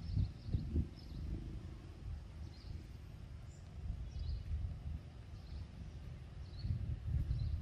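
Outdoor forest ambience: an uneven low rumble, stronger near the start and near the end, with faint, short, high chirps from a small bird or insect repeating about once a second.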